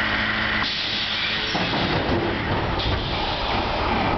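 FVV CSM-4 articulated tram running, heard from inside the passenger car. A steady hum and whine cuts off less than a second in, giving way to a hiss over the rumble of wheels on rail.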